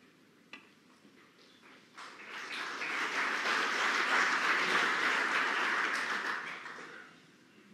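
A single sharp click of a snooker cue tip striking the cue ball about half a second in. From about two seconds in, the audience applauds for around five seconds, swelling and then fading away.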